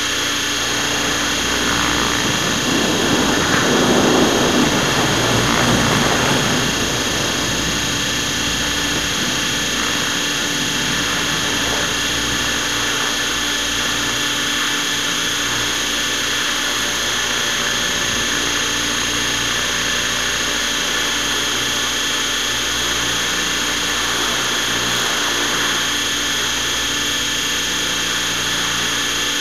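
Radio-controlled helicopter's motor and rotors running, heard from a camera mounted on the helicopter itself: a constant whine of several steady tones. A louder rush of air swells a few seconds in and then settles back.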